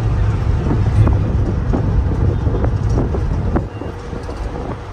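Road noise inside a moving vehicle: a steady low rumble of tyres and engine with scattered short knocks and rattles. The rumble eases a little near the end.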